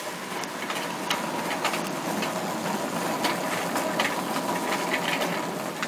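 Wire shopping cart rolling over a tiled floor, its wheels rumbling and the basket rattling with many small clicks.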